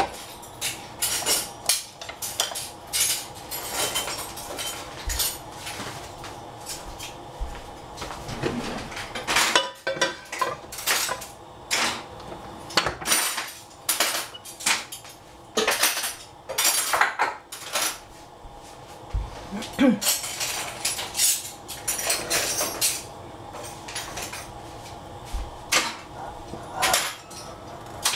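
Irregular clinks and clatter of kitchenware, metal pots and utensils knocking against each other many times over a low steady background.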